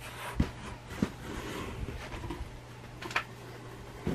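A few short, light knocks from objects being handled, about half a second in, about a second in and again after three seconds, over a steady low hum.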